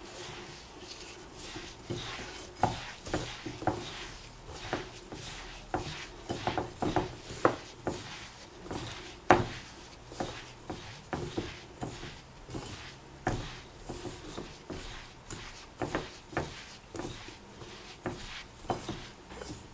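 A hand kneading and squeezing crumbly bath bomb mixture of baking soda, citric acid and cornstarch moistened with melted coconut oil, rubbing it against the sides of a plastic bowl: irregular scratchy rubs and light knocks, a few a second.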